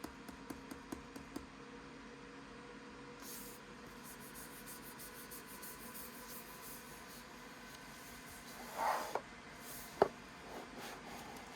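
Faint handling noise from unboxing a mechanical keyboard. A quick run of small clicks comes first, then light rustling of packaging, a brief scrape, and one sharp click about ten seconds in.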